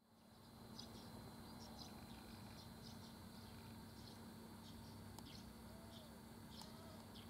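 Faint outdoor ambience fading in from silence: short high chirps about twice a second from small birds and insects, over a thin steady high insect drone and a low steady hum.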